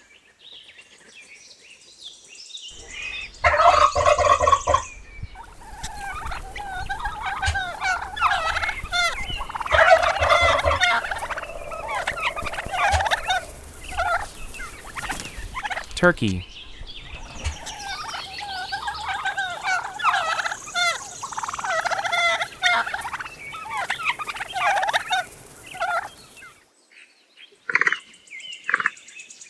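Turkeys gobbling: long runs of fast, warbling gobbles from several birds, broken by a short pause about halfway through. The first few seconds are faint.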